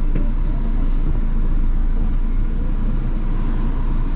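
Mini Cooper's four-cylinder engine running steadily, with the rumble of the car under way.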